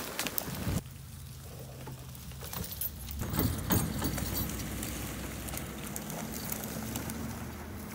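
An engine running at a steady idle, with scattered clicks and knocks over it, most of them in the first few seconds.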